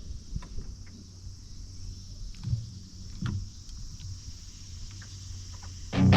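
Quiet low hum with scattered light clicks and taps, a few a second at most, a louder tap about two and a half seconds in and another past three seconds. Guitar music comes in suddenly near the end.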